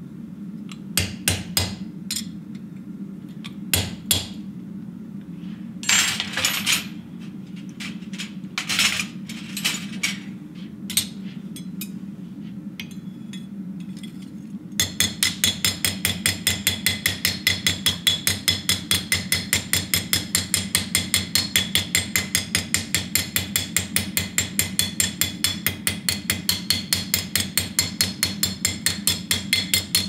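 Steel hammer blows on a steel door-hinge leaf on an anvil. For about the first half come a few scattered strikes on a hand chisel cutting the leaf's vein pattern. About halfway through, rapid, even hammering starts directly on the leaf, about four blows a second.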